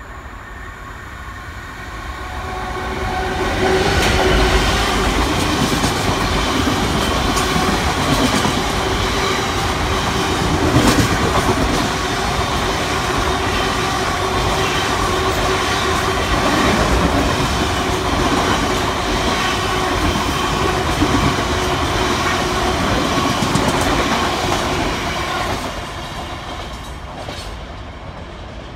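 GBRf freight train, a locomotive hauling 22 covered hopper wagons, passing through a station at speed. It grows louder over the first few seconds as it approaches, holds a steady loud rumble with wheels clattering on the rails as the wagons go by, then fades near the end as the last wagons pass.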